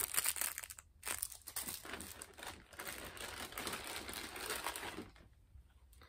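Small clear plastic bag crinkling as it is handled and opened, an irregular crackle that stops about five seconds in.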